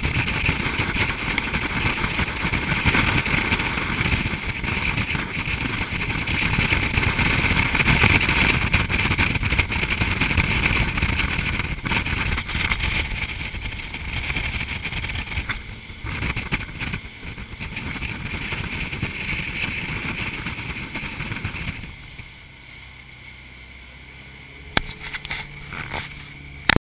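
A ski boat's engine running at towing speed under heavy wind rush on the microphone. About 22 seconds in it drops sharply to a much quieter low engine hum, with a few sharp knocks near the end.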